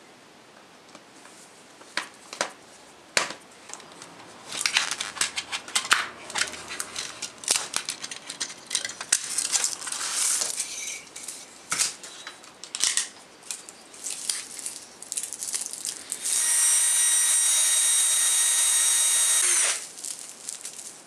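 Clicks, clatter and crackling of a plastic VHS cassette being taken apart and its tape pulled out, then, near the end, a cordless drill running steadily for about three seconds with a high whine, then stopping.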